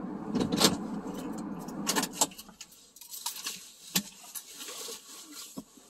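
Car engine idling, switched off about two seconds in, followed by keys jangling and a few sharp clicks.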